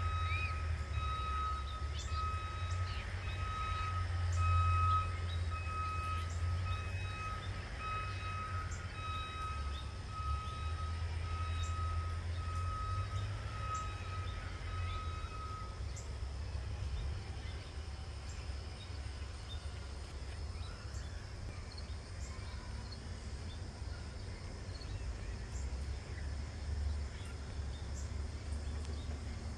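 Outdoor background sound: a steady low rumble with a high, even beep repeating about once a second, which stops a little past halfway through.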